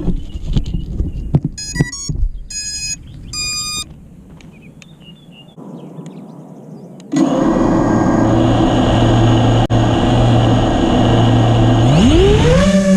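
Handling clicks and three short electronic beeps, then an Eachine Wizard X220 quadcopter's brushless motors start suddenly about seven seconds in. They run at a steady whine, and their pitch rises near the end as the throttle is opened.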